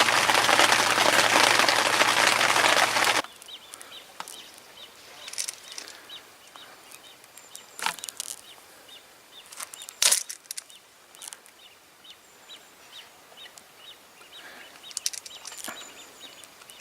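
Heavy rain drumming steadily on a bivvy canopy, cut off abruptly after about three seconds. Then quiet open air with faint high chirps repeating a few times a second and a few sharp clicks and cracks.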